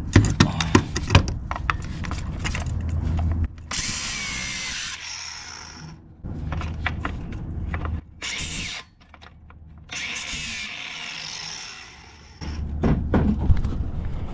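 Power cutting tool biting through a metal line or rod on a small-block V8 in three short runs, the longest about two seconds, with metallic knocks and clicks of handling before and after.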